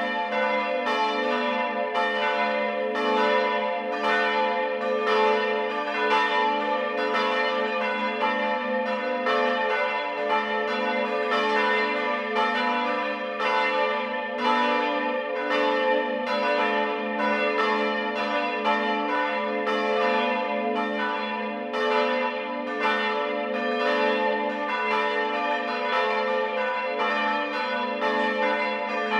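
Several church bells ringing together in a full peal. Their strokes fall about once or twice a second and overlap over a sustained ringing hum.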